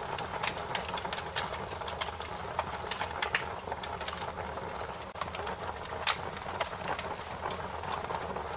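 Intro sound effect of irregular crackles and clicks over a steady hiss and a low hum.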